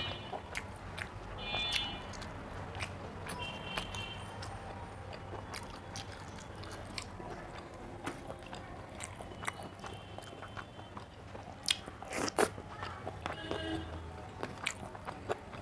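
Close-miked eating: chewing with irregular crisp crunches and mouth clicks, with a couple of louder cracks about three quarters of the way through.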